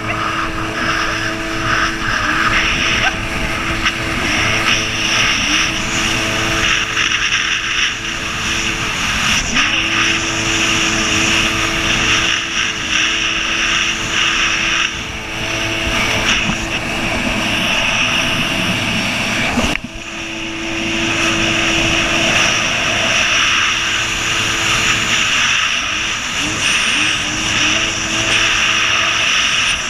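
Jet ski engine running at speed, its pitch rising and falling with the throttle, under a constant rush of wind and water spray.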